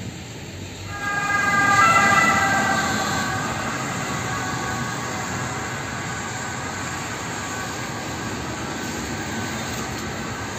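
Street traffic on a wet road, a steady hiss of tyres and engines. About a second in, a loud multi-pitched tone from a passing vehicle rises over it, then fades away over the next few seconds.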